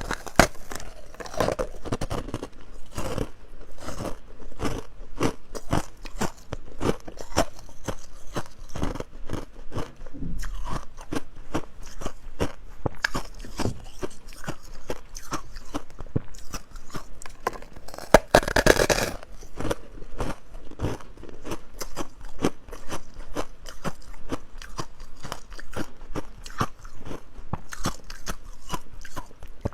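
A person biting and chewing ice close to the microphone: a dense run of sharp, irregular crunches and cracks, louder for a moment a little past halfway.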